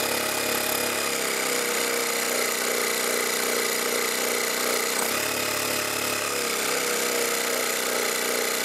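12 V portable tyre-inflator air compressor running with its hose outlet blocked. The motor labours against the building pressure and its pitch sinks about a second in. About five seconds in the pitch briefly rises, then sinks again.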